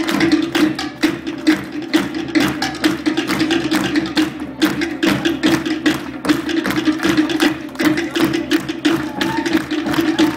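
Polynesian drum ensemble playing a fast, driving rhythm, with rapid clacking wooden strokes over a steady low tone.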